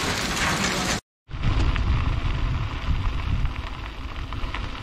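Heavy rain and hail pouring down, cut off abruptly about a second in. Then wind rumbling over the microphone, with small crackles of tyres rolling on a gravel trail as a bike rides along.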